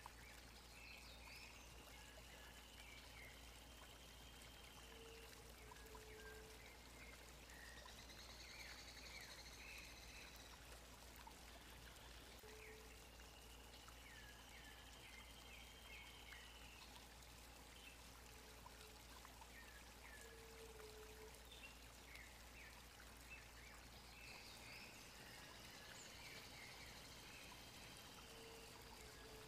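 Faint forest ambience close to silence: a steady hiss with distant birdsong, a phrase of one long high note followed by a few short notes that repeats about every twelve seconds, and a few short low notes in between.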